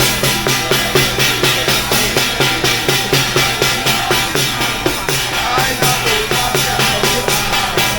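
Music with a steady, fast drumbeat, about three strikes a second, over a steady low bass tone.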